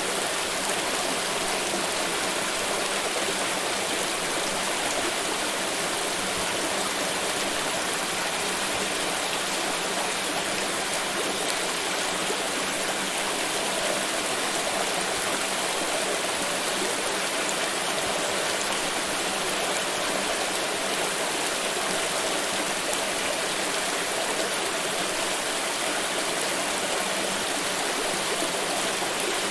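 Forest river rushing steadily over rocks, a constant even water noise with no change in level.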